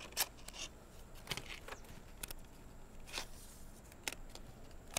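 Faint, scattered light clicks and rustles of hand work: a roll of adhesive strip being laid and pressed along flat craft wire, and a pair of scissors picked up from the table near the end.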